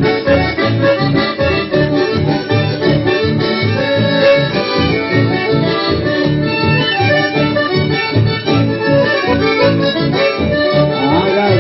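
Accordion-led band music playing an instrumental passage over a steady bass beat.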